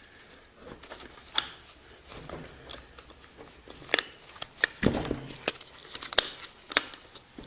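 Sharp clicks and knocks of parts and hand tools being handled while a snowblower's axle and drive are put back together, a few louder strikes with a short scraping thump about five seconds in.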